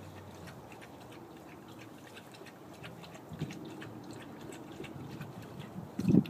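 Dogs playing: scattered light ticks and rustles, then near the end a sudden loud burst of low, pulsing growling from dogs wrestling.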